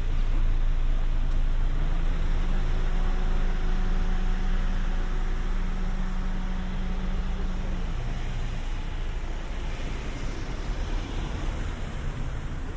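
Motor vehicle engine running close by: a low rumble with a steady hum that drops to a lower note about eight seconds in, fading slowly toward the end.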